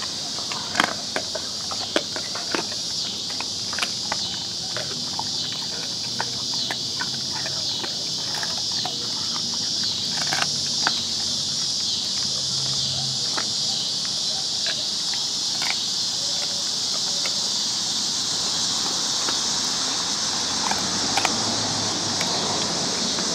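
A steady, high-pitched outdoor insect chorus that pulses rhythmically in places, over irregular sharp clicks and crunches of dogs chewing raw beef oxtail bones.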